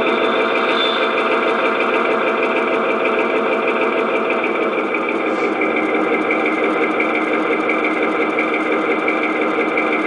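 Onboard sound system of a B&O E8 diesel locomotive model playing a steady diesel engine sound through its small speaker, the model standing still on the track.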